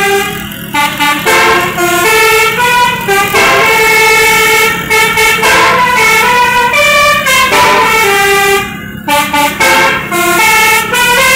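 Bus telolet horn of the Basuri type playing a fast multi-note melody in stepping tones, with two short breaks.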